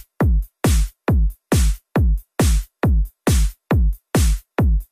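Electronic bass-test music: a deep kick-drum hit repeating a little over twice a second, each one sliding down in pitch, with a hiss on top of every hit and silence between them.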